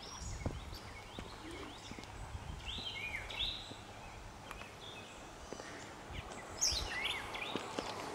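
Songbirds chirping in the surrounding trees: short sweeping calls, a few together about three seconds in and again near the end, over a faint low rumble.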